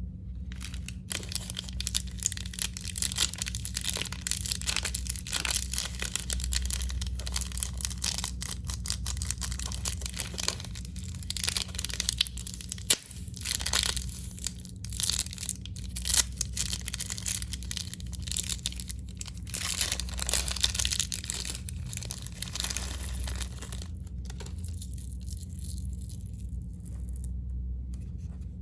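Plastic candy wrappers being crinkled and torn open in close-up, in dense irregular crackles with sharp snaps, easing off about four seconds before the end. A steady low hum runs underneath.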